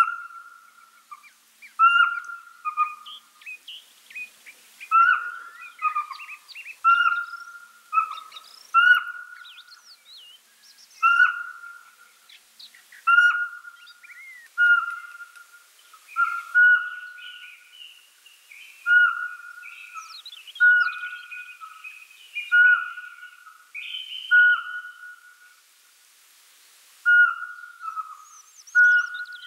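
Eurasian pygmy owl singing: a monotonous series of single clear whistled hoots, repeated about every one and a half to two seconds. Fainter, higher chirps and twittering trills come between the notes.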